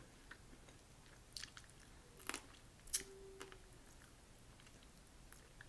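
Faint eating sounds of boiled crawfish: a few soft clicks and crackles of shells being peeled by hand, with chewing.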